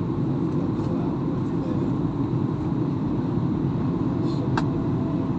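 Steady low rumble inside an airliner's cabin in flight on approach: engine and airflow noise, with a faint click about four and a half seconds in.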